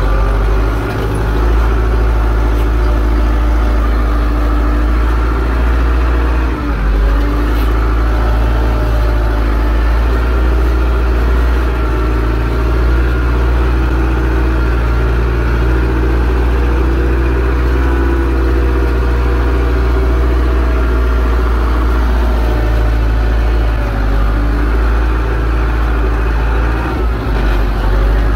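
Zetor 6245 tractor's four-cylinder diesel engine running steadily, with a brief dip in level about seven seconds in.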